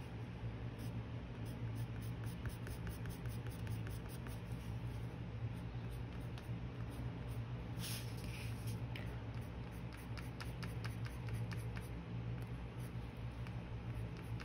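Coloured pencil shading on watercolour paper: quick, repeated scratchy strokes, with one louder scrape about eight seconds in, over a steady low hum.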